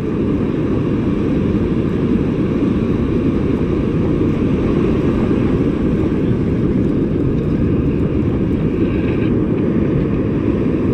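Steady low rumble of wind buffeting the microphone, with surf washing on the beach behind it.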